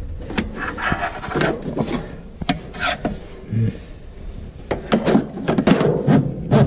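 Irregular scraping, rubbing and light knocks as a telescoping magnetic pickup tool is poked around among the parts of a truck's engine bay, fishing for a dropped bolt.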